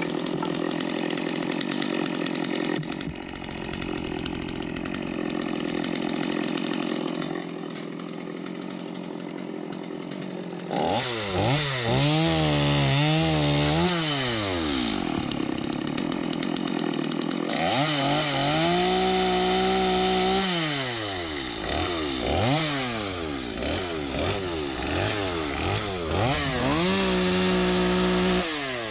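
A gas chainsaw runs steadily for about ten seconds, then is revved up and down again and again, held at full throttle for a second or two several times as it cuts through branches and debris.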